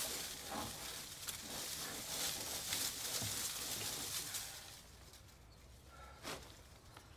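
Dry, dead leaves still on a European beech rustling as the whole tree is handled and shaken, dying down about five seconds in, followed by one light knock near the end.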